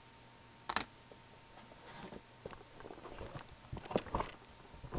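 Handling noises from trading-card packs and cards being moved about: soft crinkly rustles and scattered light clicks and taps, a sharper one just under a second in and a short cluster around four seconds in.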